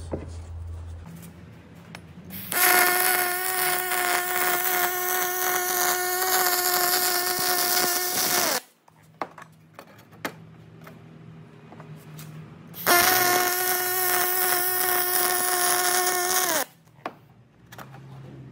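Aluminium welding arc, two runs of a fillet weld: about six seconds, then after a pause about four seconds, each a steady high buzz with a crackling hiss over it that starts and stops abruptly. A low hum fills the gaps between the runs.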